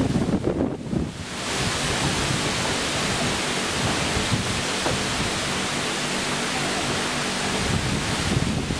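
Steady rushing noise of wind on the microphone, thinning briefly about a second in.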